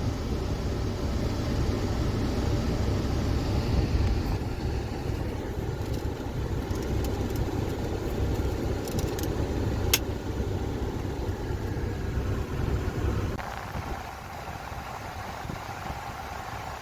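A steady low rumble of a running engine, which drops away about thirteen seconds in, with a few faint clicks.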